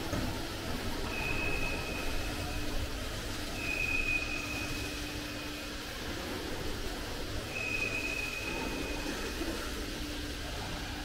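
Steady low rumble and hiss of background noise, with a faint high whine that comes and goes three times.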